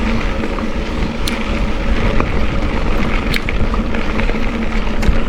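Steady wind rushing over the microphone of a moving rider, with a low rumble underneath and a few faint ticks.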